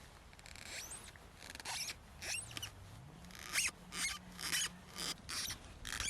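A series of short scraping, rubbing strokes, about two a second, some with brief squeaks, starting about a second in.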